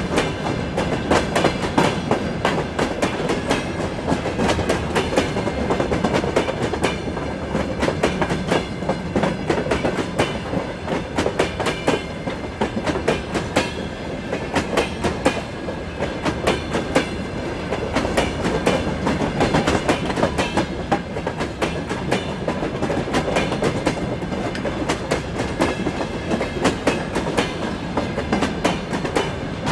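Freight train wagons, covered hoppers and open cars, rolling past with their wheels clacking over the rail joints in a continuous run of sharp knocks over a steady rumble and rattle.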